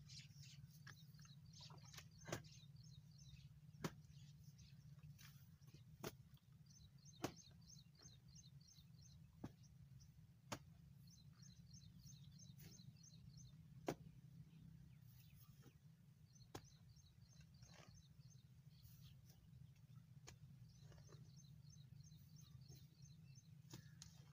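Long-handled hoe striking into damp soil, about a dozen separate knocks spread a second or more apart, as earth is cut and piled into a small bund along an irrigation channel. Birds twitter in bursts behind it over a faint steady low hum.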